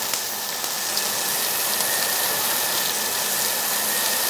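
Slabs of bone-in black-pork belly sizzling steadily on a hot tabletop grill grate, a loud even hiss of fat frying during the meat's first sear (chobeol).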